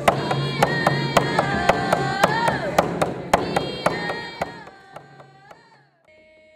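Hand drum song: voices holding long, gliding notes over steady beats on hand-held frame drums. It fades out about five seconds in, and a quieter held sung note follows.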